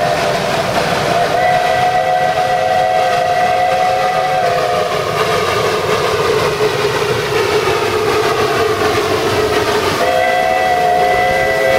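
Whistle of a 764-series narrow-gauge steam locomotive blowing long blasts: a steady two-note blast, then a lower, rougher note for about five seconds, and a second full blast starting near the end.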